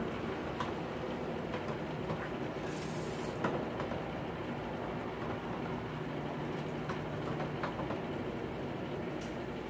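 Steady background rumble and hum in a blacksmith's shop, with a short hiss about three seconds in as the hot steel rail-spike handle is quenched in water, and a few light metallic ticks.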